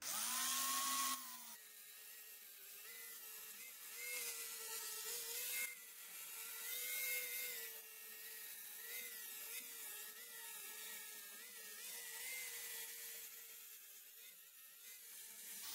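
Angle grinder running a Diablo Steel Demon flap disc against a rusted iron railing to strip the rust. A steady motor whine dips and recovers in pitch as the disc bears on the metal, over a gritty hiss. It is louder for about the first second.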